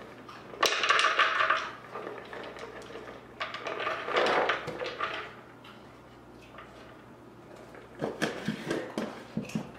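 Mixed nuts poured from a glass jar, rattling and clattering into the compartment of a wooden serving board in two short spells, then a run of light clicks as pieces are set in place by hand near the end.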